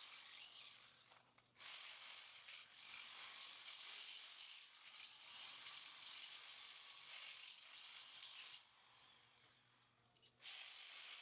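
Corded electric drill boring into a small flat metal bar, with a steady grinding hiss. It stops for a moment about a second and a half in, stops again for about two seconds near the end, then starts again.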